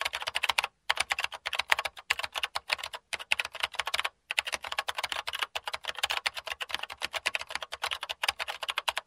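Fast computer-keyboard typing: a dense run of keystroke clicks, several a second, broken by a few short pauses.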